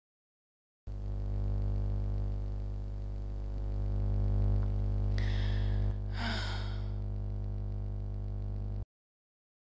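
A steady low hum starts about a second in. About five seconds in a person breathes in, then lets out a sigh. The hum cuts off suddenly near the end.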